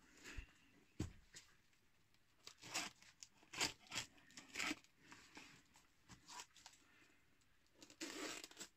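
A knife slitting and tearing the clear plastic wrap around a box, heard as scattered short crackles and tearing sounds, with a longer crinkling rustle near the end.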